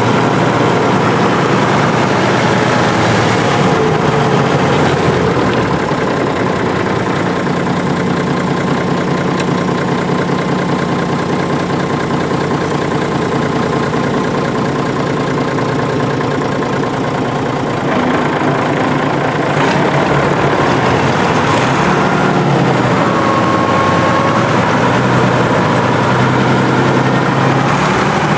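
Deutz 10006A tractor's air-cooled diesel engine running steadily. About two-thirds of the way in it gets a little louder and the engine speed wavers up and down.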